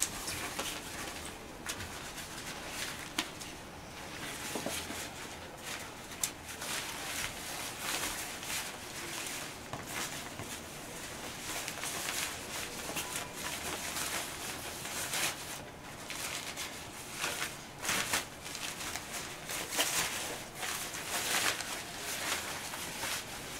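Rustling and crinkling of a nylon dog raincoat as it is handled and pulled onto a dog. It comes as irregular short rustles, busier and louder near the end.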